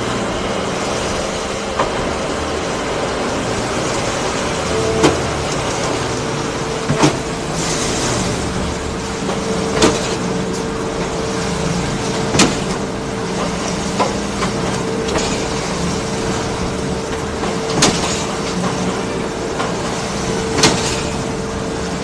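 Concrete mixer pump running: a steady machine hum from its mixing drum and pump, with a sharp knock every few seconds.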